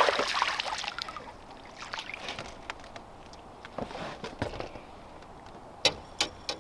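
A hooked crappie splashing at the water's surface as it is lifted out, dying away within about a second. Then small handling noises, with two sharp clicks near the end.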